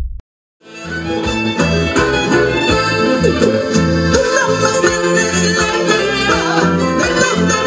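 Live Peruvian huayno band playing, violins in the lead over accordion and guitars; the music fades in about half a second in after a brief silence.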